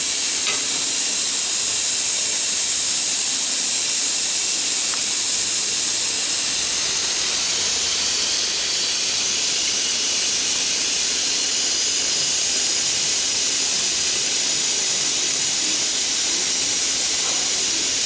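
Steady high hiss with a faint low hum from an auto nylon zipper slider mounting machine standing powered up, its compressed air supply on and its vibrating slider hopper running.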